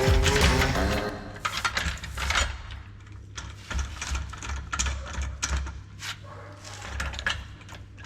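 Irregular metallic clicks and knocks of hand tools working on a car's rear shock absorber mounting, with brief low rumbles between them.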